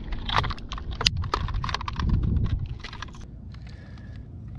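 Irregular clicks and knocks of a handheld digital fish scale and its lip-grip clip being handled and clipped onto a bass's jaw, over a low rumble. The clicks thin out after about three seconds.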